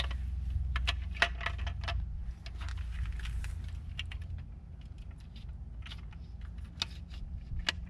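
Hard plastic parts of a C-Tug kayak cart clicking and knocking as the kickstand is fitted through the cart frame: scattered sharp clicks over a steady low rumble.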